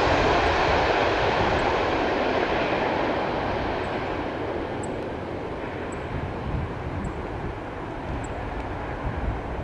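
Jet engine noise of an Airbus A330-200 airliner, a steady rush over a low rumble that slowly fades as the aircraft moves away.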